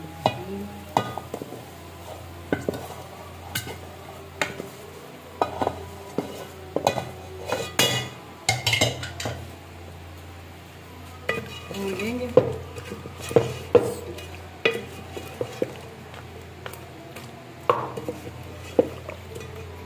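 Wooden spoon stirring mutton and fried bitter gourd in an aluminium pot, scraping and knocking irregularly against the pot, with a light sizzle from the hot ghee.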